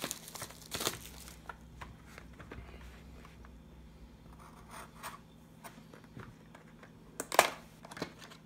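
Small cardboard trading-card box being worked open with a thin metal tool: scattered scratches and scrapes of metal and card, with one loud tearing sound a little past seven seconds in.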